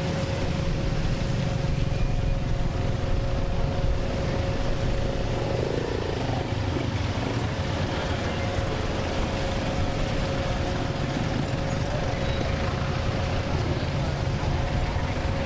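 Steady low engine rumble with a constant mid-pitched hum: the running noise of engines and machinery on an airport apron.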